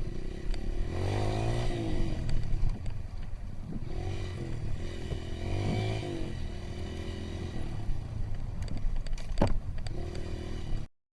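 Honda CRF230 trail bike's single-cylinder four-stroke engine revving up and falling back twice while riding, with rattles and knocks from the bike over rough ground and one sharp knock near the end. The sound cuts off abruptly just before the end.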